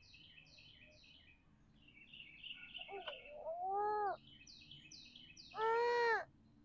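Wild birds calling. A songbird repeats quick downslurred chirps in short runs of three to five, and a louder, longer nasal call sounds twice, at about four and six seconds in.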